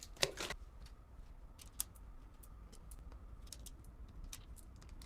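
Faint scattered clicks and light taps of small items and packaging being handled, with a short rustle just after the start and one sharper click about two seconds in.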